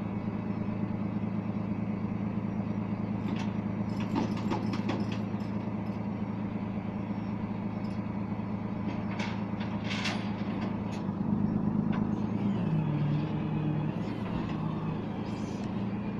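Flatbed tow truck's engine running steadily, its pitch and loudness shifting briefly about eleven to thirteen seconds in. Several metallic clanks and knocks around four and ten seconds in.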